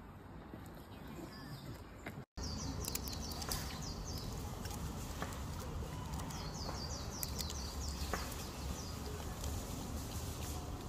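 Outdoor ambience: a steady low rumble with runs of high, quickly repeated chirping calls, broken by a brief dropout about two seconds in.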